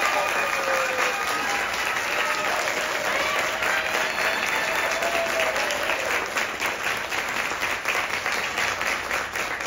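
Audience applauding steadily, with a few voices calling out in the first half; the clapping begins to die down near the end.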